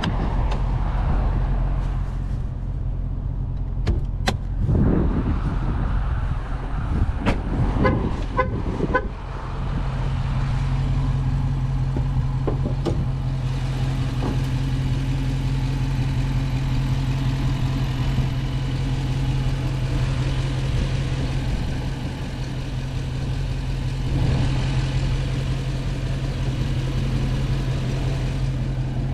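A Dodge Challenger Scat Pack's 392 HEMI (6.4-litre) V8 idling steadily, the idle getting louder and fuller from about ten seconds in. A few sharp clicks and knocks sound between about four and nine seconds in.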